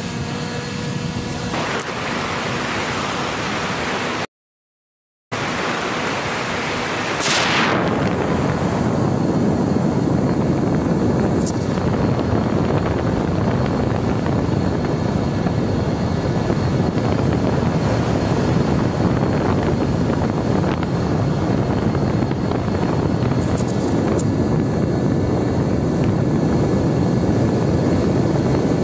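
Steady rush of wind and airflow over the onboard camera microphone of a Mini Talon fixed-wing FPV plane in flight. The sound cuts out completely for about a second a few seconds in.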